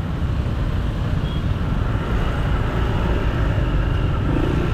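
Road noise from a motorcycle ride through slow, congested traffic: a steady low rumble of engine and surrounding cars.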